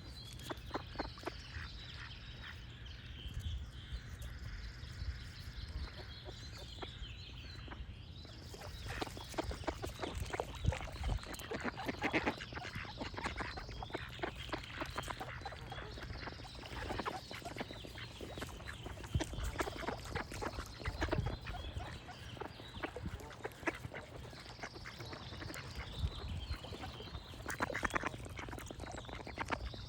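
Ducks quacking in clusters of rapid quacks, with birds singing a short high phrase that repeats every few seconds behind them.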